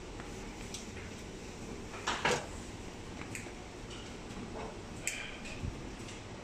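Steady low hum from a plastic injection moulding machine left running while it warms up, with a sharp double click about two seconds in and a few lighter clicks around five seconds.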